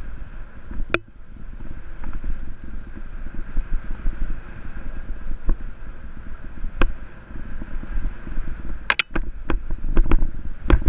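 Jamis Dakar XCT Pro full-suspension mountain bike ridden fast over a dirt singletrack: wind rumbling on the camera microphone and tyres rolling over dirt, with sharp clicks and rattles from the bike over bumps, a quick cluster of them near the end.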